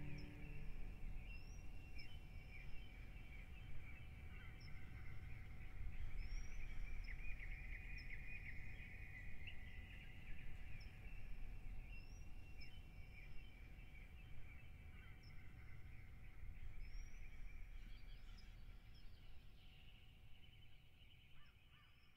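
Outdoor birdsong: many small birds chirping together, with one short, high, rising call repeated every second or two, over a low steady rumble. The whole fades down toward the end.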